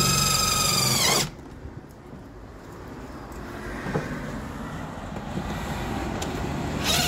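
Cordless drill-driver running at full speed driving a screw through cement board into a thin metal profile, winding down about a second in. It starts up again near the end.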